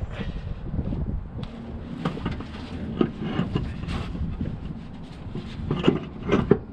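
Wind buffeting the microphone, with scattered metallic knocks and clunks from a heavy torque converter being handled and worked onto a TH350 transmission. The knocks are loudest in a cluster near the end.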